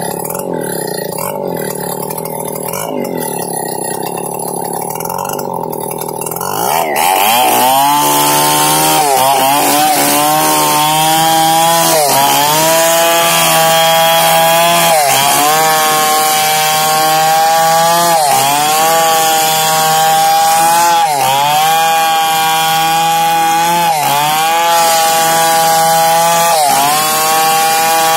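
Two-stroke chainsaw ripping lengthwise along a log. It runs at a lower, steadier note for about six seconds, then revs up to full throttle. Its pitch dips and recovers every few seconds as the chain loads in the wood.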